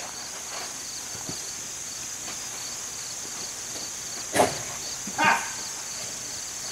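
Steady, pulsing insect chirring, with two short, louder sounds about four and five seconds in.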